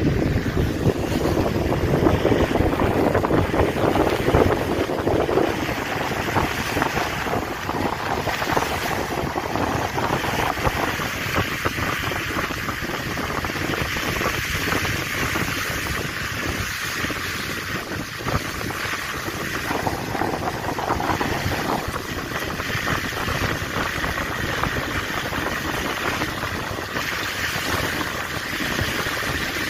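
Steady rush of a moving vehicle's road and tyre noise on a wet, slushy road, mixed with wind on the microphone; loudest in the first five seconds or so.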